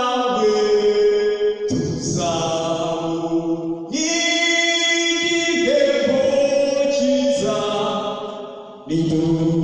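A man singing a hymn unaccompanied, in long held notes with short breaks between phrases.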